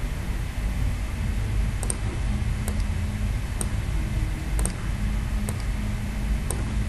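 Computer mouse clicks, about one a second and some in quick pairs, over a steady low background rumble, as text is selected and formatting applied in a word processor.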